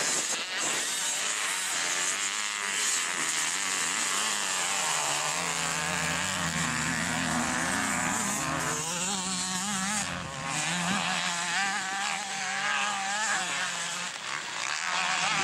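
Several motocross bikes' engines running hard, the pitch repeatedly rising and falling as the riders rev, accelerate and ease off.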